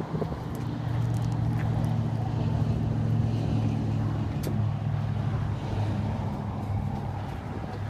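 Diesel engine of a Takeuchi TL150 compact track loader running, a steady low engine note that sets in about half a second in and holds to near the end.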